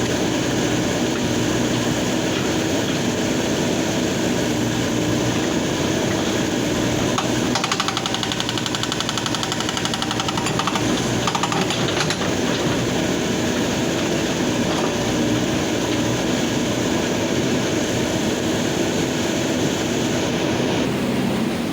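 Hydraulic breaker on a backhoe loader hammering river stone, a rapid, steady hammering over the running engine.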